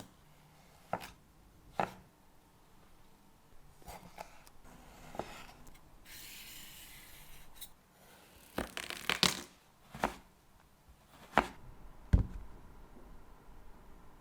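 Kitchen knife cutting food on a cutting board, in separate strokes a second or more apart with a quick run of strokes about nine seconds in. A soft rustling hiss about six seconds in.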